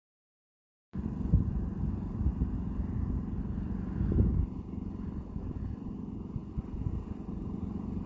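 A low, uneven rumble that starts abruptly about a second in, with irregular surges.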